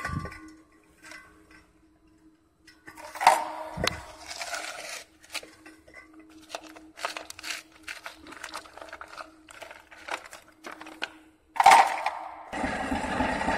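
Scrap lead wheel-balancing weights clinking and knocking against each other and a metal ladle as they are handled for melting: a string of sharp, irregular clinks over a faint steady hum. About a second before the end, a louder steady mechanical noise starts.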